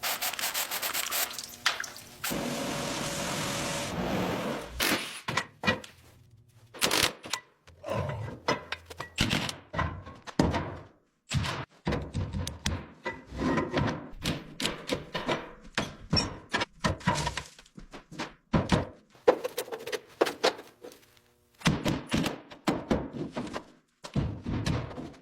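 Repeated knocks, thunks and short scraping sounds of hand-tool work on metal parts during a vehicle teardown, after a steady rushing noise in the first few seconds.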